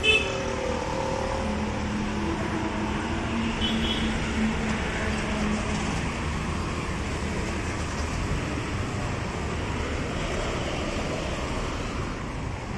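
City street traffic: a steady din of passing vehicles, engines and tyres.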